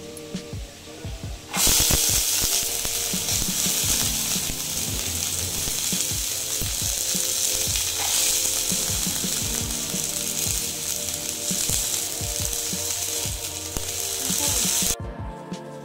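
Green peas sizzling in hot oil in a frying pan, a loud steady hiss that starts suddenly about a second and a half in and cuts off sharply just before the end.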